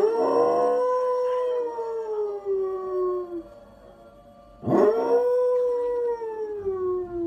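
A Samoyed howling twice. Each is one long howl that rises sharply at the start and then slowly falls in pitch. The second begins about four and a half seconds in.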